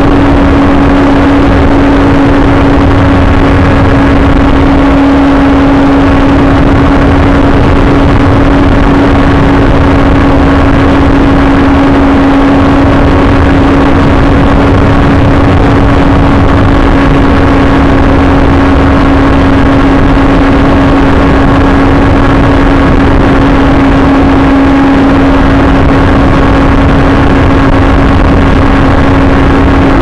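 Electric motor and propeller of an AXN Floater Jet RC plane, heard loud from the onboard camera. It drones at one steady pitch through the flight, under heavy rumbling wind noise on the microphone.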